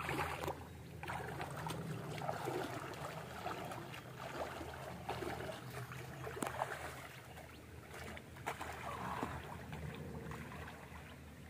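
Water sloshing and splashing irregularly as people wade through a shallow stream.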